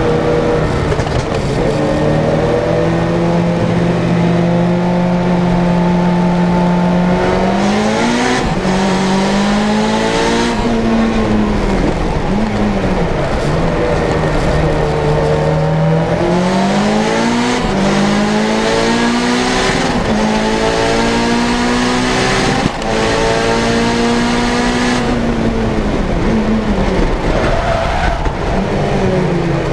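Turbocharged four-cylinder of a tuned, roughly 500 hp Lancia Delta Integrale 16v driven hard on track. Its revs climb and drop back again and again as it pulls through the gears, with a steadier lower stretch in the middle and a brief dip about 23 seconds in.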